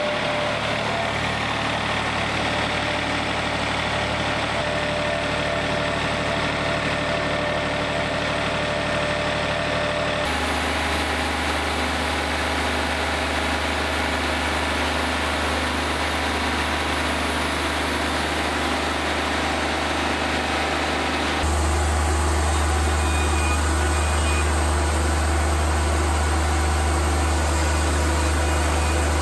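Wood-Mizer LT40 Wide portable sawmill running steadily, its diesel engine driving the band blade as it saws through a walnut log. The sound shifts abruptly twice, about ten and twenty-one seconds in.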